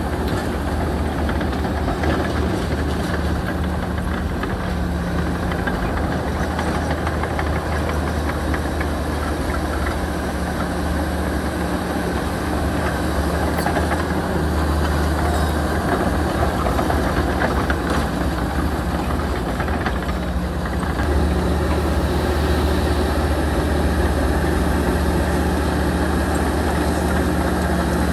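Heavy diesel engine of earth-moving machinery running steadily, getting a little louder about three quarters of the way through.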